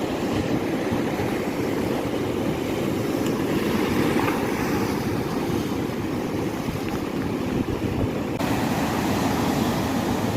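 Boat engine running steadily at sea, mixed with wind and waves; the sound grows brighter and hissier about eight seconds in.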